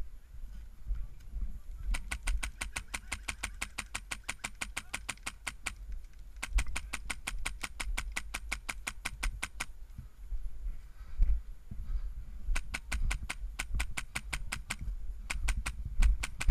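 Airsoft rifle with a Polarstar compressed-air (HPA) engine firing full-auto bursts, a rapid, evenly spaced stream of sharp shots. There are four bursts: two long ones of three to four seconds each, then two shorter ones near the end, over a low rumble.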